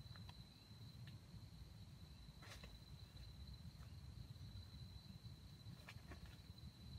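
Faint outdoor ambience: a steady high-pitched insect drone over a low rumble, with a few brief faint ticks, the clearest about two and a half seconds in and again around six seconds.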